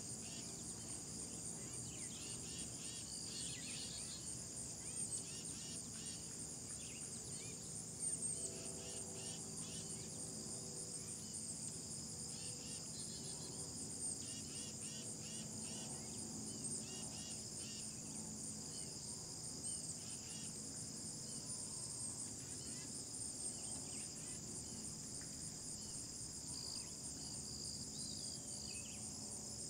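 A steady high-pitched insect chorus, with scattered short chirps over it.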